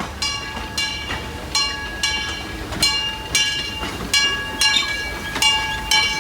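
Steam locomotive bell ringing steadily, about two strikes a second, each strike ringing on, over a low rumble of the train.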